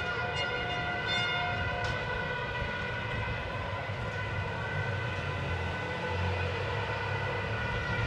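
Street protest din with traffic: a low traffic rumble under several long, steady tones at different pitches that hold throughout.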